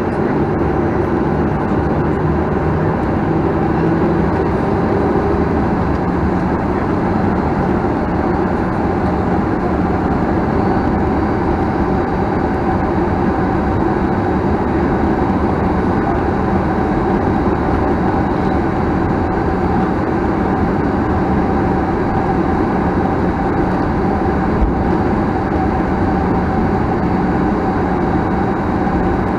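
Steady engine noise and rumble inside the cabin of a Boeing 737-900ER, from its CFM56-7B turbofans, with a faint hum of steady tones under it.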